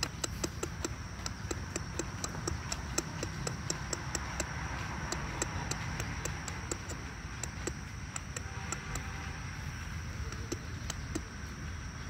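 Rapid, irregular sharp clicking, several clicks a second, over a constant low rumble and a steady high, thin tone.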